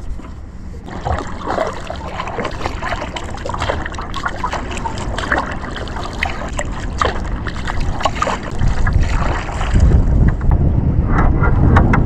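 Kayak paddle strokes: the blades dip and splash, and water trickles off them in irregular spatters. Wind buffets the microphone throughout, heaviest near the end.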